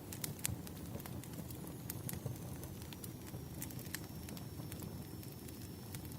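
Wood campfire burning, with irregular sharp crackles and pops over a low steady rumble of flame. From about two seconds in, a faint thin high whistle runs alongside.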